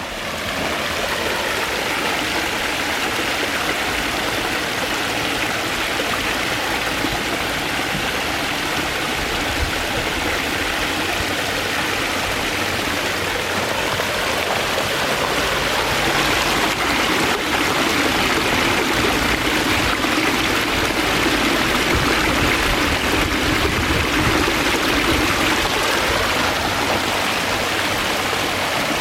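Pondless waterfall running: a steady rush of falling and splashing water.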